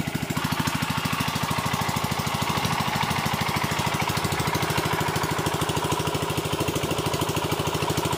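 An 8 hp single-cylinder diesel engine of an irrigation pumping set running steadily, driving the water pump, with a fast, even firing beat.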